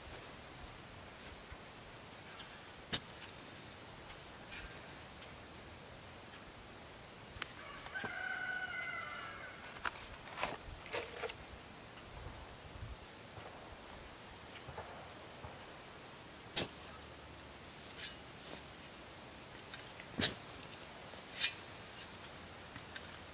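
Quiet outdoor ambience: a faint, steady, fast-repeating high chirping, scattered sharp knocks and footsteps, and a short high call about eight seconds in.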